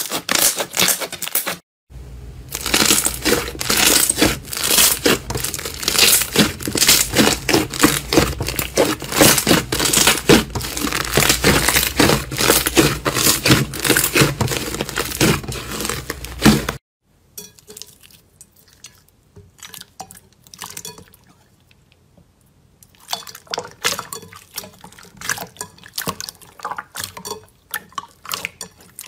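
Hands squeezing and kneading slime, making dense runs of wet crackles and small pops as air pockets burst. The crackling thins out to a few faint clicks for several seconds past the middle, then picks up again near the end.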